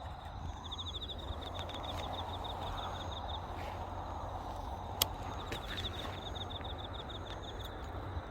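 An insect calling in two trains of rapid, evenly repeated high chirps, each about two to three seconds long, over a steady low outdoor rumble. A single sharp click about five seconds in.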